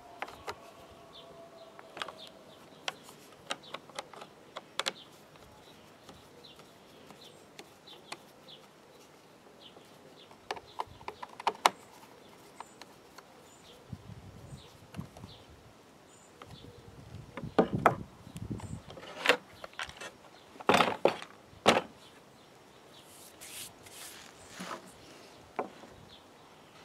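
Intermittent clicks and knocks of a Stihl strimmer's plastic handle and shaft parts being handled and fitted against a wooden table, with a run of heavier knocks and thumps in the second half.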